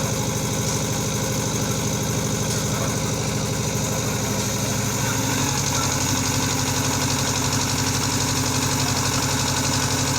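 Concrete mixer's engine running steadily with a pulsing beat; its note shifts and grows slightly louder about halfway through.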